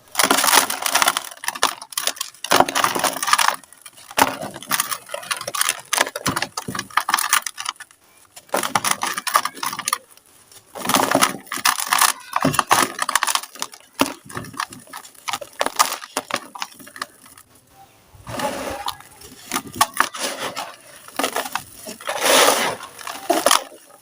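Dry, gritty sand-cement crumbled and crushed by hand in a tub: bursts of dense crunching and crackling, each lasting a second or a few seconds, with short pauses between.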